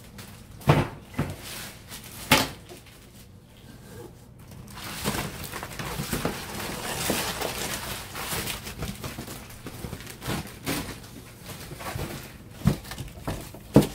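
Plastic bubble-wrap packaging and cardboard being handled and pulled out of a shipping box: crinkling and rustling, with a few sharp knocks and bumps.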